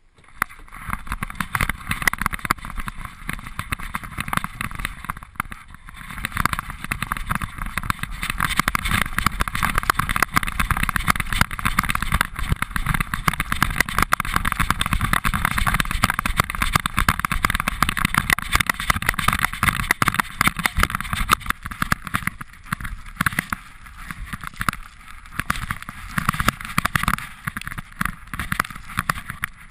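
Continuous rubbing and scuffing noise from a GoPro strapped to a running dog's chest, as the fleece harness and the dog's flapping ears brush against the camera housing. It dips a little in places in the second half.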